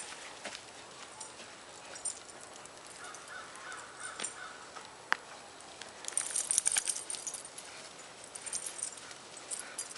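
Footsteps crunching on a thin layer of fresh snow over pavement, in scattered steps that bunch up about six to seven seconds in, with a single sharp click about five seconds in.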